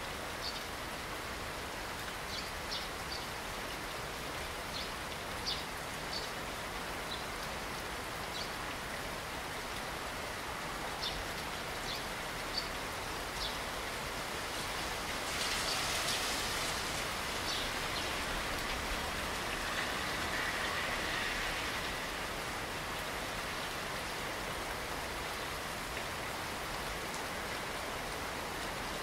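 Steady rain falling, an even hiss with scattered short high ticks of drops in the first half. About halfway through, a brief louder rush rises and fades within a couple of seconds.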